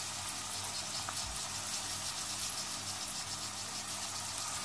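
Diced onion and freshly added grated carrot sizzling steadily in hot olive oil in a stainless steel saucepan.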